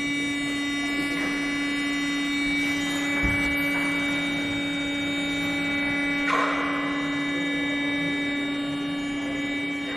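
Steady electrical machinery hum at a constant pitch, with a layered high whine above it. Two brief rushes of noise come about three and six seconds in.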